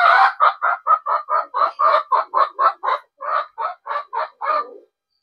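Chicken clucking: a drawn-out call trails off, then a run of quick clucks follows at about four a second and stops shortly before the end.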